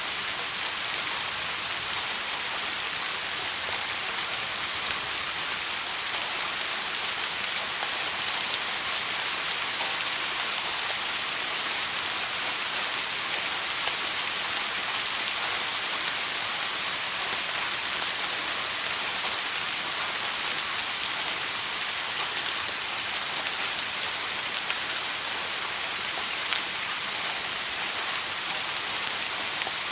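Steady soft rain falling, an even hiss of many small drops with faint scattered patters, unchanging throughout.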